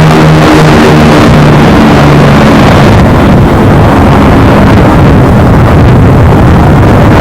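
Large piston aircraft engine running very loud, close enough to saturate the recording. A steady, pitched engine note for the first few seconds gives way to a rougher, noisier rumble.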